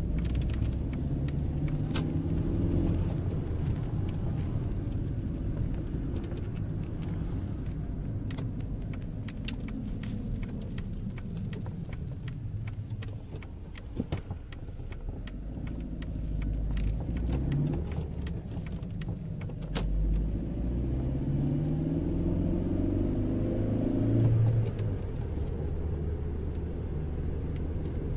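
Volkswagen Polo 6N2 heard from inside the cabin while driving: a steady engine and road rumble. The engine note rises several times as the car accelerates and drops off sharply between rises. Scattered light clicks and rattles sound throughout.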